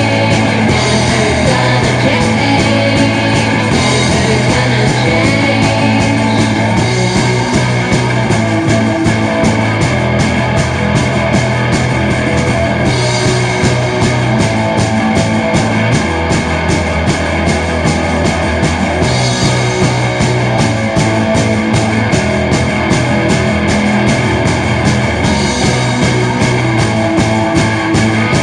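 Demo recording of a rock band playing: guitar, bass and drums with a steady beat.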